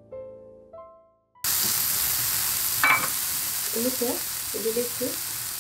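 Sliced button mushrooms frying in hot coconut oil in a nonstick pan: a steady sizzle that cuts in abruptly about a second and a half in, after a few piano notes. A single sharp knock, likely a utensil against the pan, comes about halfway through.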